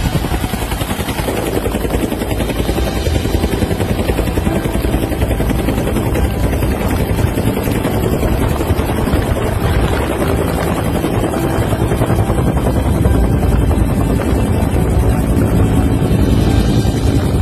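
Military helicopter in flight, its rotor chopping and engine running loud and steady, with wind rushing past the open cabin door as it flies low and comes down toward the grass. It grows slightly louder near the end.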